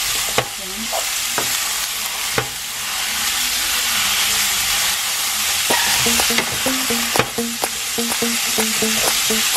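Ground beef sizzling in hot oil in a metal pan while it is stirred with a wooden spoon: a steady sizzle with scattered knocks and scrapes of the spoon against the pan. Soft background music comes in about six seconds in.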